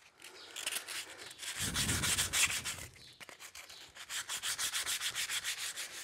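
Sandpaper being rubbed by hand over a carved dead juniper (sabina) root to smooth it: rapid back-and-forth scratchy strokes, about four or five a second, with a brief pause about three seconds in. A dull low rumble of the piece being handled comes around the second second.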